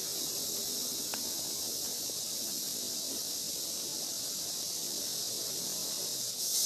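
Steady high-pitched chorus of insects, growing louder near the end, with a faint single click about a second in.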